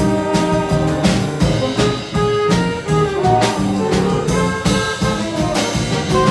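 School jazz band playing a tune: saxophones and brass over a drum kit keeping a steady beat.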